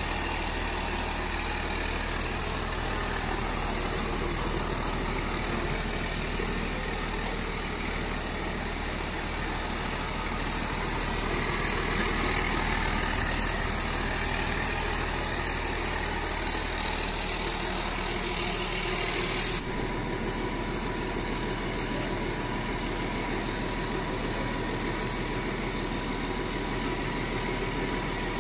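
Freshly overhauled Volvo D7E inline six-cylinder turbo-diesel in a wheel loader, idling steadily.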